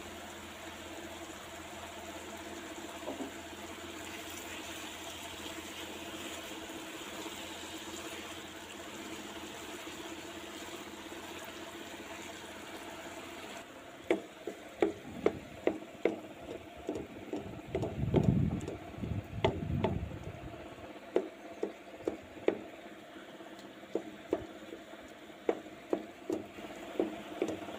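Bottle gourd curry bubbling and sizzling steadily in a nonstick wok. About halfway through, a wooden spatula starts stirring it, tapping and scraping against the pan in quick sharp knocks, with a louder scraping stretch a few seconds in.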